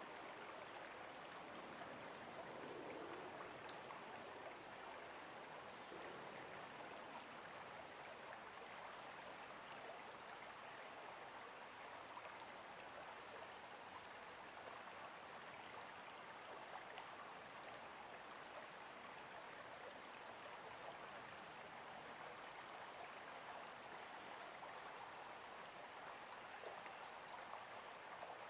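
Creek water flowing over rocks: a soft, steady rushing and babbling.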